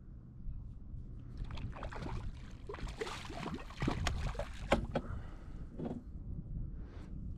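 A hooked rainbow trout splashing and thrashing at the water's surface beside the boat as it is brought into a landing net: a rush of irregular splashes lasting about four seconds, dying away near the end.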